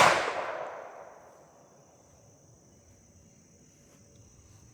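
The echo of a pistol shot rolls away over about a second and a half. Then a steady, high-pitched insect trill carries on by itself.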